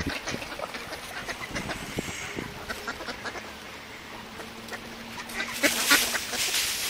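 A flock of mallards calling close by with many short, separate calls, and a louder rush of noise about six seconds in.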